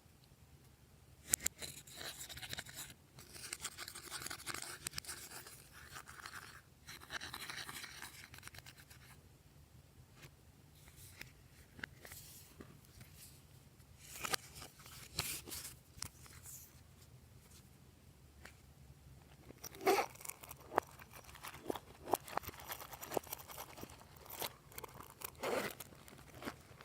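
Glossy slime being worked and mixed by hand: sticky crackling and wet clicking that come in bursts, with a run of sharper pops in the last few seconds.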